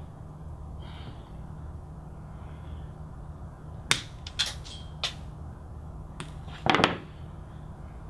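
Flush cutter snipping the ends of Cat6 twisted-pair copper conductors: a few sharp clicks, starting about four seconds in, over a steady low hum.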